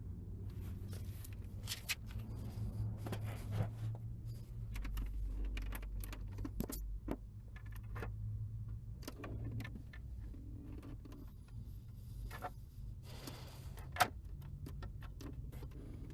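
Small metal parts and hand tools clicking, scraping and rattling against each other while a Range Rover's ignition lock is picked at to get out a broken key, over a steady low hum.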